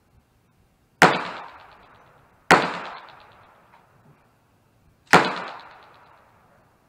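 Three gunshots, each a sharp crack followed by a long echoing tail. The second comes about a second and a half after the first, and the third about two and a half seconds after that.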